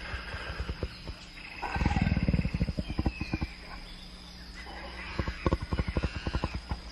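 Deep, rough animal roaring calls in two bouts of rapid low pulses, with higher chirping calls from other animals in the rainforest background.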